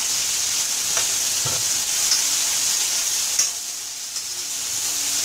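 Chopped onions sizzling in hot tempering oil in a kadai, stirred with a metal spoon that scrapes and ticks against the pan a few times.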